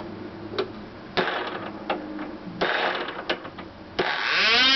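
Picco 12 Turbo ABC three-port two-stroke glow engine running on a test stand, sputtering unevenly with irregular spurts of power. About four seconds in it clears and revs sharply up into a high, steady propeller whine.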